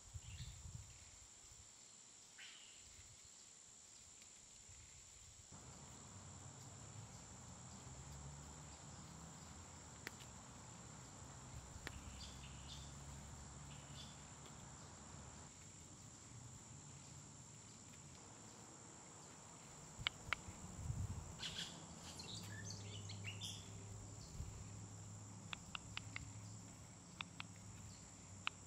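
Steady high insect drone, like crickets, with a faint low rumble coming in about five seconds in. Quiet scraping of a small folding knife peeling a potato, then light clicks as the blade cuts through the potato onto a wooden board near the end.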